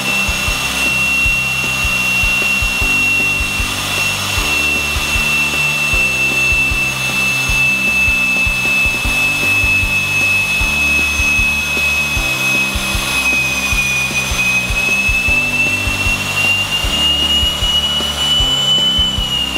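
Pratt & Whitney PT6A-42A turboprop being turned over on its starter for a compressor wash, with a steady high whine. The pitch climbs a little late on and starts to drop right at the end as the motoring run is shut off.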